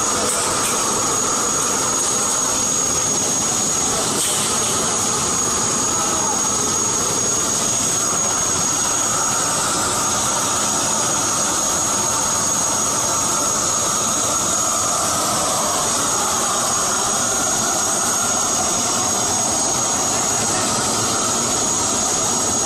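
Steady industrial machinery noise of a pipe-welding plant, with a constant high-pitched whine over it.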